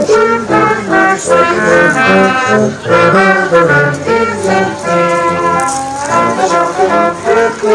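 Brass band playing a tune, with several brass instruments holding and changing notes together.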